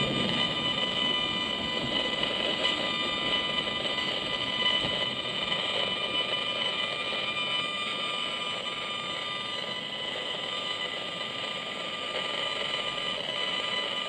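Gigahertz Solutions HFE 35C RF meter's speaker giving out a steady electronic buzz of several fixed tones over a noisy hash. This is its audio rendering of the pulsed microwave signals it is picking up, here strong, at a reading near 2000 µW/m² that is called a lot of radiation.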